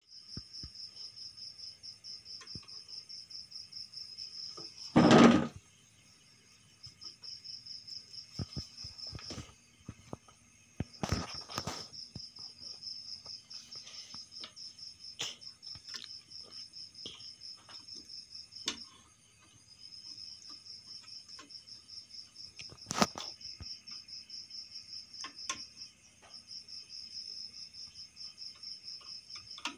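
An insect's high, rapidly pulsing trill goes on steadily, breaking off for a second or so several times. Over it come scattered knocks and thumps from a kitten's play with a stick around a wooden frame, the loudest a thump about five seconds in.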